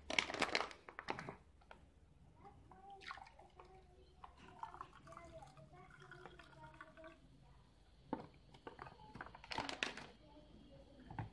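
A thick chocolate cocoa drink poured from a foil ration pouch into a drinking glass, liquid glugging faintly. Louder handling noises come at the start and again near the end.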